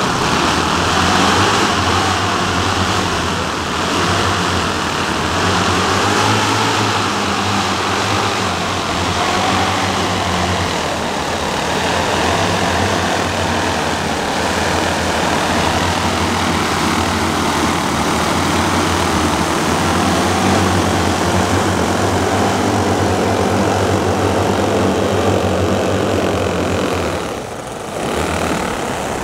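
The twelve 10 cc O.S. model engines of a 1:10 scale Dornier Do X RC flying boat running together on the ground as a steady, loud drone. The sound breaks off near the end.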